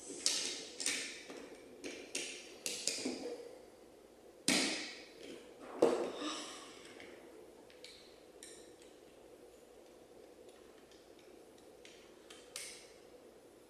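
Plastic Lego pieces clicking and knocking as a small Lego car is handled and worked on, with two louder knocks about four and a half and six seconds in. After that there are only a few faint clicks.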